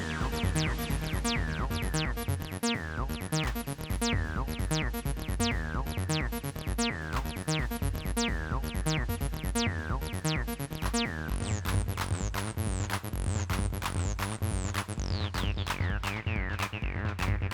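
Roland T-8 beat machine playing an electronic drum-and-bass-synth pattern: a steady drum-machine beat with repeated falling-pitch synth sweeps. About eleven seconds in the pattern changes and the bass line gets heavier.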